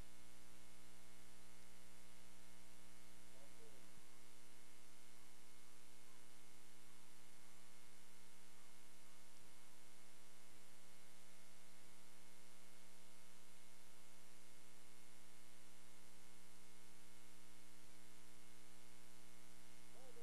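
Steady electrical hum and buzz on the recording, many even tones stacked over a light hiss, at a constant level. A faint voice shows through briefly about three and a half seconds in.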